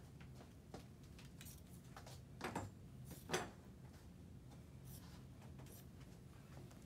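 Elastic athletic tape being peeled off the roll and smoothed onto an ankle: faint rubbing and scratching, with two short, louder tape-peeling rasps near the middle.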